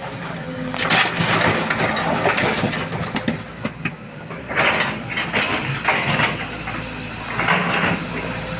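SANY SY225C excavator's diesel engine running steadily while its bucket handles stone, with three spells of rock grinding and clattering.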